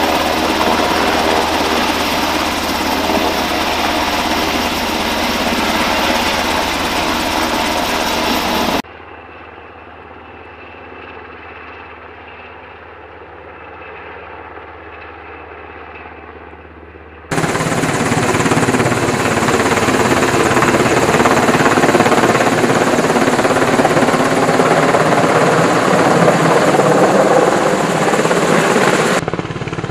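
UH-60L Black Hawk helicopter's rotors running loud and steady while it hovers low over water with its Bambi Bucket dipped in. About nine seconds in it cuts abruptly to a much fainter, more distant rotor sound as the helicopter flies higher with the bucket slung below, and about seventeen seconds in it cuts back to loud as the bucket is carried close by.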